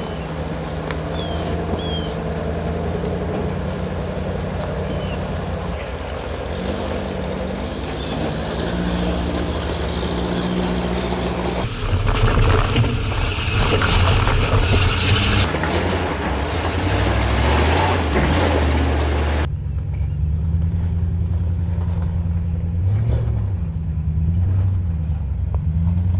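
Off-road SUV engines running at crawling speed and revving up and down. The sound changes abruptly about 12 and 19 seconds in.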